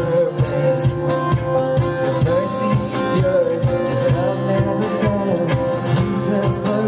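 Worship band music: drums keep a steady beat under guitar chords, with a wavering lead melody on top.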